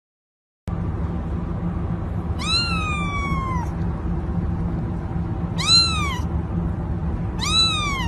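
Kitten meowing three times, high arched calls, the first one long and drawn out and the other two short, over a steady low background hum.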